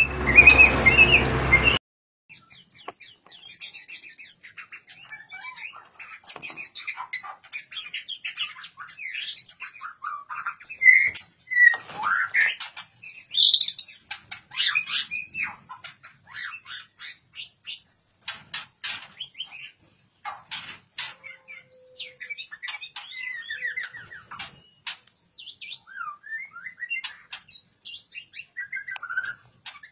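A white-rumped shama of the Medan strain singing in full, agitated song: a long, varied run of rapid whistles, trills and sharp clicking notes with brief pauses. A short burst of loud noise comes right at the start.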